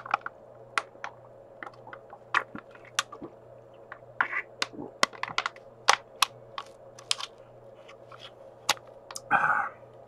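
Thin aluminum drink pouch with a built-in spout crinkling and crackling in the hands as it is held and squeezed for drinking. The crackles come sharp and irregular, roughly every half second, with a louder burst near the end.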